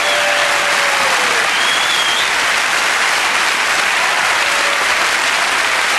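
A large audience applauding steadily, a dense, even clapping that holds at the same level throughout.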